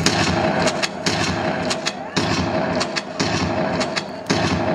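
Rapid, irregular gunshots, a dozen or more sharp cracks in under five seconds, over a steady rumble and hum, as in a staged battle scene.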